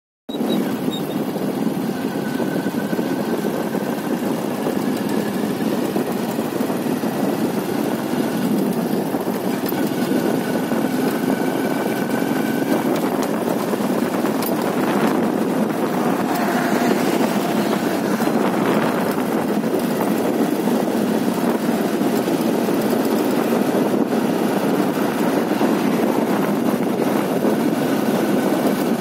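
Steady running of a motorcycle engine mixed with wind rush on the microphone while riding along a road.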